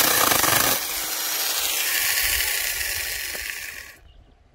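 AUSHEN mini cordless electric chainsaw cutting through a branch, the chain chewing loudly through the wood; under a second in the load drops off and the saw runs on with a quieter hissing whir that slowly fades, then cuts off suddenly near the end.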